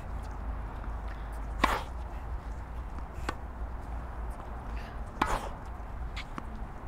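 Tennis balls struck with racquets in a forehand rally drill: sharp pops of ball on strings, the loudest about one and a half seconds in and again about five seconds in, with a weaker hit between them and faint ticks between the hits, over a steady low rumble.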